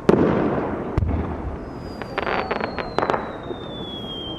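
Aerial fireworks bursting: a sharp bang at the start and another about a second in, each followed by a rolling rumble, then a cluster of quick crackling pops. A thin whistle falls slowly in pitch from about a second and a half in.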